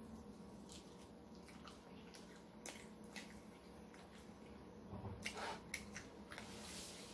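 Quiet eating sounds: soft chewing and the handling of food and a bowl, heard as scattered small clicks, with a short run of louder clicks about five seconds in. A faint steady room hum lies underneath.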